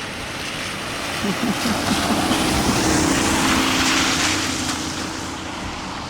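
A vehicle passing by: a rush of noise that swells to a peak about three to four seconds in and then fades, with a steady engine tone underneath.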